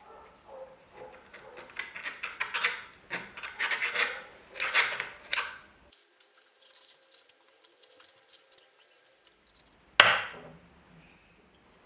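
Hand work on a small metal trench lighter: a run of uneven rubbing and scraping strokes, then quieter light ticks, and one sharp loud scrape about ten seconds in.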